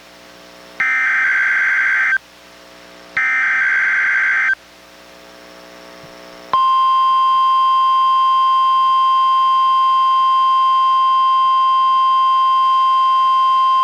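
NOAA Weather Radio's SAME digital header, two harsh data screeches about 1.4 s each with a short gap between them, played through a Reecom R-1630 weather radio. About 6.5 s in, the steady 1050 Hz NWR warning alarm tone starts and holds at one pitch, sounded as the required weekly test of receivers' warning alarm.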